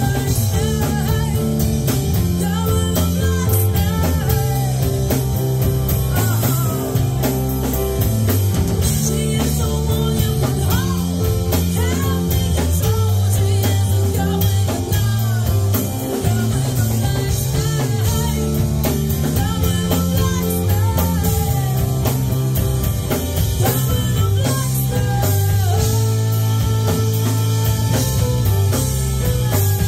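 Live rock band playing: electric bass, drum kit and electric guitar, with a woman singing into a microphone over them.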